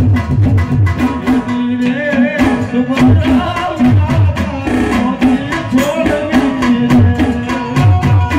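Live Gujarati devotional folk music: dakla drums beaten in a steady driving rhythm over a steady held note, amplified through a PA.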